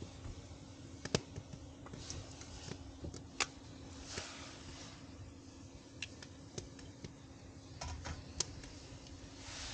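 Steel wok of fresh stinging nettles cooking over a wood fire: scattered sharp clicks and crackles, with a short hiss about four seconds in and another near the end as the nettles go into the hot pan and are turned with tongs. A faint steady hum runs underneath.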